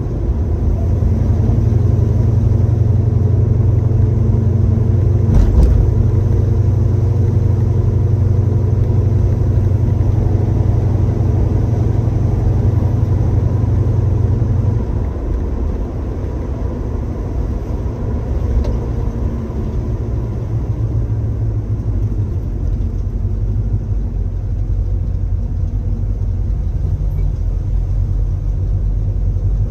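A 1966 Chevrolet Chevelle's engine running as the car cruises, heard from inside the cabin. A steady low rumble eases off about halfway through, and there is a single brief knock about five seconds in.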